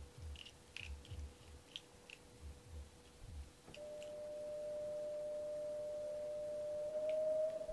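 Small wet mouth clicks from a cat licking and mouthing at fingers as its chin is scratched, over soft rubbing bumps. About halfway through, a steady pure electronic-sounding tone comes in and slowly rises in pitch, louder than the rest. A faint steady hum lies underneath.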